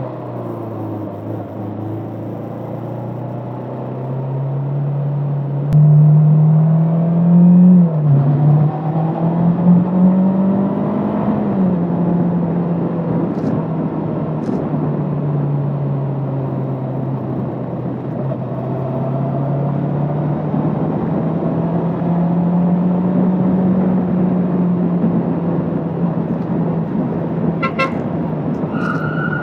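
Bristol Venturi 500 motorcycle engine running under way, its pitch rising as it accelerates about six seconds in, then rising and dropping through gear changes before settling steady. A horn sounds briefly near the end.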